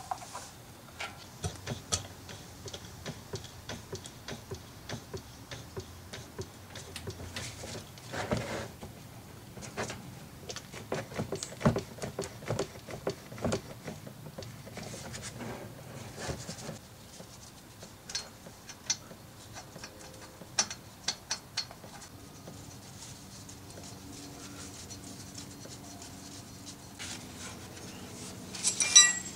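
Scattered small mechanical clicks and clinks of hand work at a car's rear differential, as gear oil is pumped in through a transfer hose and the fill plug is handled. Near the end comes a louder run of rapid clicks.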